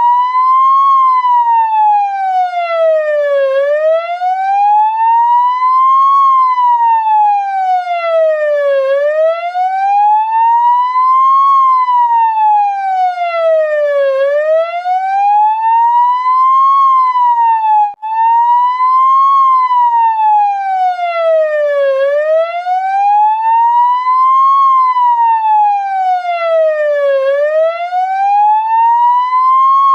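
Ambulance siren in a slow wail, its pitch rising and falling smoothly and evenly, one full up-and-down cycle about every five seconds. It cuts out for an instant about 18 seconds in, then picks up again.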